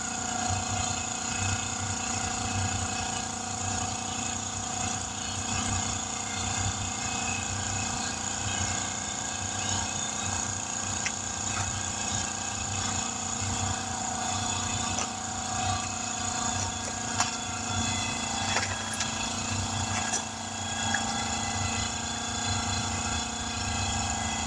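Steady hum of a running engine-driven machine, with a few light clicks and knocks a little over two-thirds of the way in.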